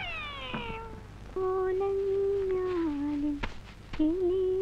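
A man's groan sliding down in pitch and trailing off, then a cow lowing: long calls, each held on one note and then stepping down to a lower one, the second starting near the end.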